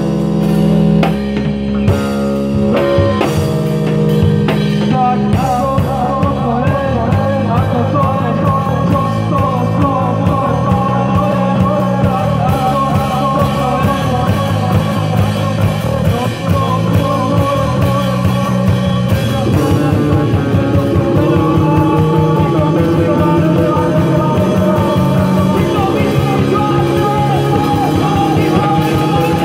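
Live rock band: electric bass and drum kit playing, the sound filling out about five seconds in as singing comes in over a loud, punk-style groove.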